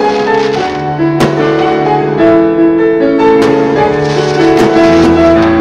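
Instrumental background music of held chords, with a few sharp hits along the way.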